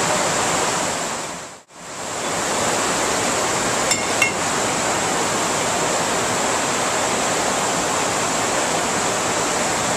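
Vltava River water rushing down a short drop, a steady, quite noisy rush. It drops out briefly about a second and a half in, and two faint clicks come about four seconds in.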